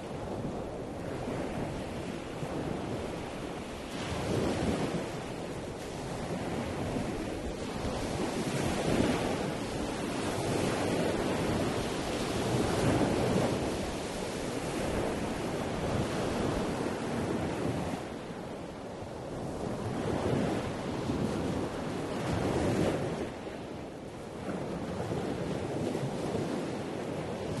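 Rushing noise that swells and fades every few seconds, with no music or voice.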